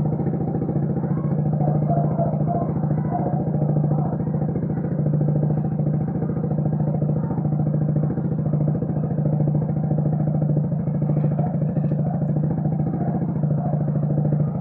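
Motorcycle engine idling steadily through a newly fitted aftermarket exhaust pipe with its silencer insert in, an even low exhaust note with no rattle.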